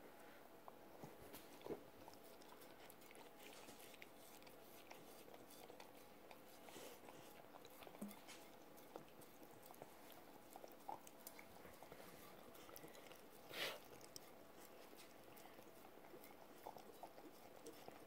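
Faint licking and chewing as a corgi cleans crumbs off a rug and licks a plate, with scattered soft clicks of tongue and plate and one brief louder scuff about two-thirds of the way through.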